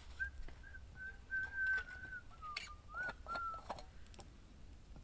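A thin, high whistle held near one pitch in short stretches with brief breaks, dipping and rising again about three seconds in. A few faint, sharp clicks fall alongside it.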